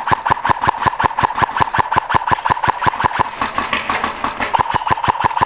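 A rapid, even run of mechanical clicks, about eight or nine a second, each with a short ringing tone, going on without a break.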